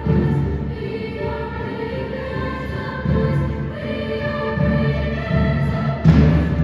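Choir singing sustained chords in several parts, with a loud percussive hit near the end.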